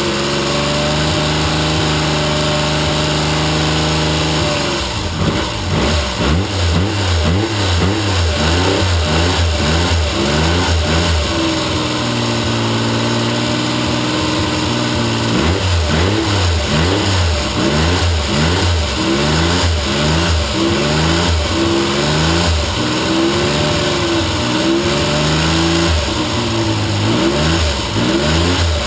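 Triumph T160 Trident's three-cylinder engine running, held at a steady speed at first, then blipped up and down again and again, settling briefly midway before more repeated blips.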